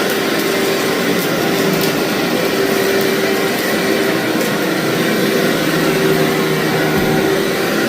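Vacuum cleaner running steadily on a thick, fluffy carpet, its motor holding one even hum, with a few faint ticks of grit being sucked up.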